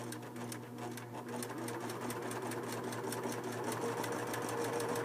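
Singer 4562T electric sewing machine sewing a straight stitch: a steady motor hum under fast, even ticking of the needle mechanism, growing a little louder as it runs.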